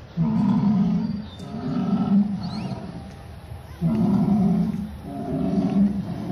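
Recorded dinosaur roar sound effect played from a dinosaur model's loudspeaker: four deep, growling roars of about a second each, in two pairs.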